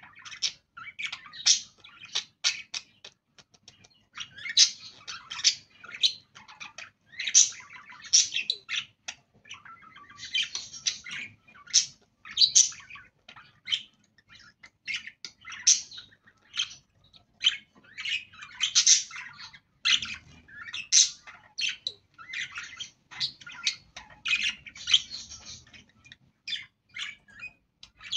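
Budgerigars chattering: a continuous stream of short, high chirps and warbles with no pauses.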